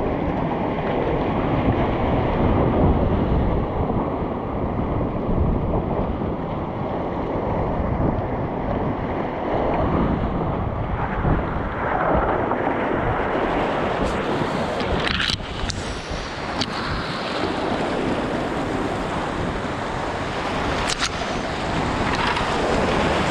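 Whitewater rushing and splashing around a kayak running a creek rapid, steady and loud, with wind noise on the microphone. A few sharp knocks stand out about two-thirds of the way through and again near the end.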